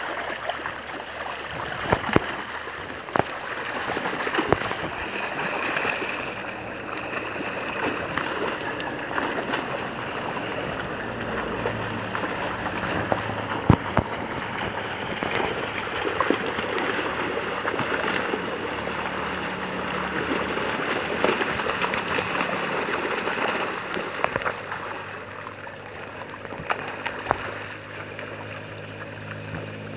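Water splashing and churning as large cachama thrash inside a seine net drawn tight in shallow pond water, with sharp slaps scattered through.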